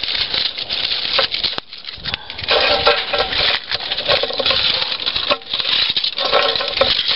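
Aluminium foil crinkling and tearing as the excess foil lining is torn off around the rim of a coffee-can Dutch oven. It comes in several spells, with a quieter pause about two seconds in.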